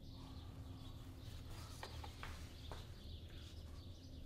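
Faint clicks and rustling as the removed VANOS filter is handled in a paper towel, over a steady low hum.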